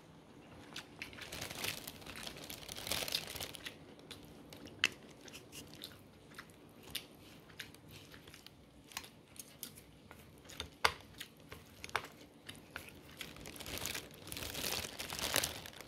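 Close-up eating sounds: chewing, with scattered light clicks and scrapes of a plastic spoon and chopsticks in a takeout bowl of sticky rice cake. There are two longer rustling stretches, one near the start and one near the end.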